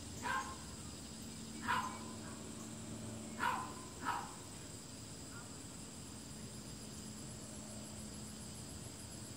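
A dog giving four short, faint barks in the first half, the last two close together, over a steady high insect buzz.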